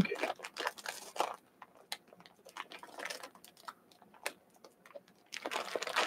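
A person chewing a jellybean close to the microphone: soft, sticky mouth clicks, dense for the first second and a half, then sparser.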